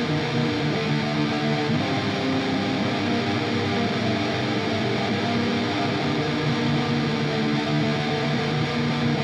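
Electric guitar through an Eno BMF fuzz pedal, a Big Muff-style fuzz, heavily distorted and recorded direct through a speaker-cabinet impulse response, playing a metal riff.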